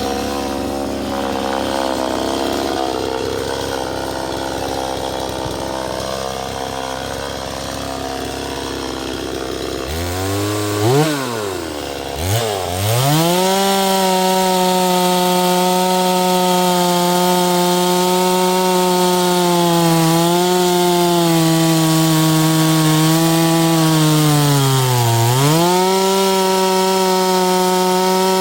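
Holzfforma G260 two-stroke chainsaw, a Stihl MS 260 clone, cutting wood. About ten seconds in its revs drop and rise twice, then it runs at high steady revs with a short dip near the end; the owner says it is spinning a little better but is still not happy with it.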